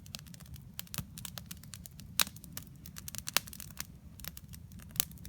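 Freshly lit wood campfire crackling: irregular sharp pops and snaps, a few of them louder, over a low steady rush.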